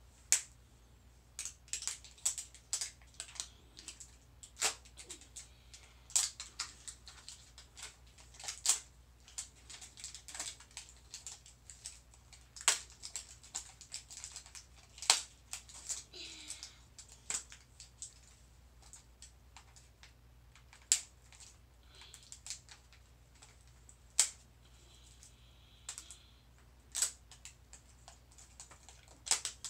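Plastic toy packaging being handled and opened, giving irregular sharp clicks, snaps and brief crinkles.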